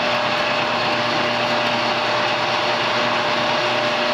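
Electric motor of a vintage Walker four-post car lift running steadily with a constant whine and hum as it raises a car on its newly fitted wire-rope cables.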